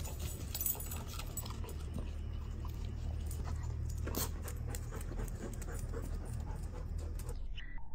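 Dog panting steadily, over a low rumble, with scattered light clicks and taps.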